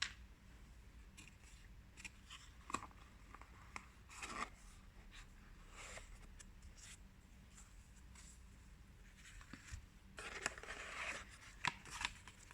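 Faint handling sounds: scattered small clicks and rustles of a smartphone box's packaging and paper inserts being taken out, with a longer rustle about ten seconds in.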